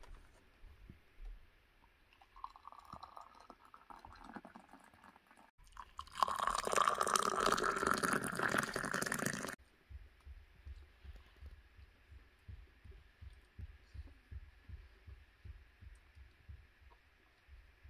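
Tea poured from a porcelain teapot into glass cups: a short, quieter pour about two seconds in, then a louder, longer pour from about six to nine and a half seconds, its pitch rising slightly as the glass fills.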